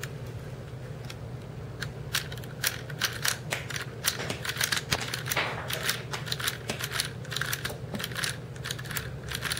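Homemade Lego rubber-band pistol firing rubber bands in semi-automatic: a long, irregular run of sharp plastic clicks as the mechanism releases band after band, coming thickest in the middle.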